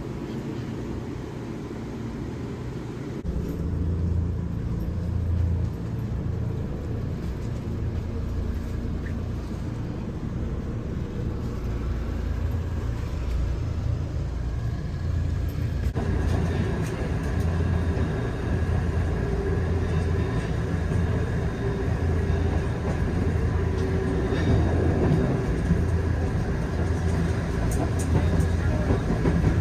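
Train running, a steady low rumble with a slow pulsing in the bass; the sound changes abruptly about halfway through and is a little louder after.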